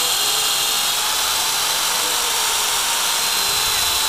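Black & Decker power drill running steadily, its bit boring a tap hole into a maple trunk, with an even motor whine.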